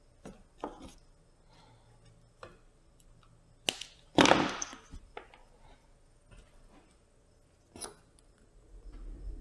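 Small tool-handling sounds at a workbench: a sharp snip of flush wire cutters through a battery lead wire a little under four seconds in, followed at once by a louder knock and rattle, with a few light clicks around it and one more click near the end.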